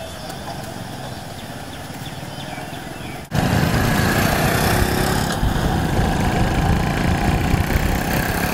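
Faint outdoor background at first. About a third of the way in, loud, steady engine and wind noise from small motorcycles riding along a road cuts in and continues.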